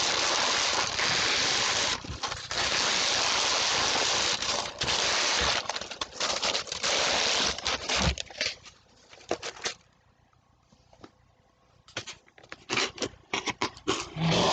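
Packaging being handled: crinkling and rustling in long stretches for the first several seconds, then scattered clicks and rustles with a short quiet gap.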